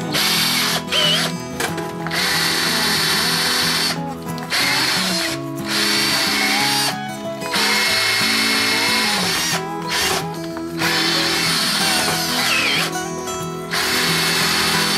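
Cordless drill running in repeated bursts, stopping briefly every second or two, as it is worked against a small aluminium outboard engine part to clean its gasket surface. Guitar background music plays underneath.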